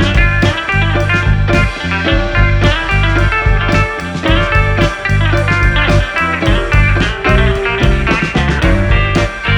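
Background music led by guitar, with bass and a steady beat.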